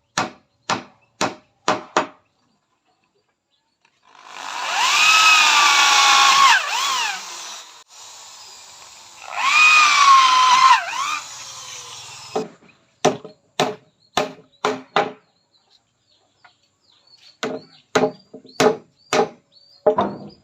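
Runs of sharp knocks on wood, about three a second, with two bursts of a power tool cutting wood between them. Its motor pitch sags under the load and recovers in each burst.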